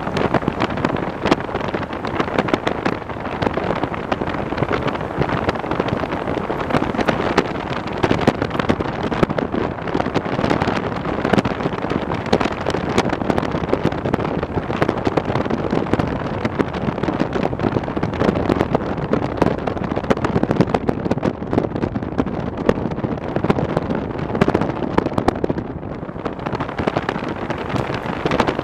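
Heavy wind buffeting the microphone: a loud, continuous rushing roar with rapid irregular flutters.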